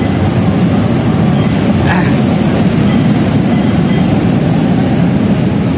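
Busy rail-station ambience: a loud, steady rumble with muffled crowd voices.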